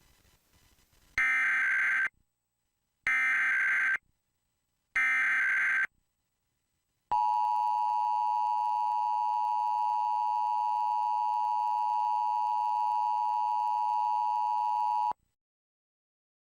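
Emergency Alert System alert opening: three short bursts of SAME header data tones, each about a second long and about two seconds apart, followed by the steady two-tone EAS attention signal held for about eight seconds, then cutting off.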